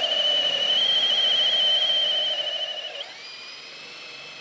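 Flex turbo hammer drill's motor whining steadily at high speed, under load, as a 1¼-inch speed bore bit chews through a wooden post. About three seconds in the sound turns abruptly quieter and the whine drops lower in pitch.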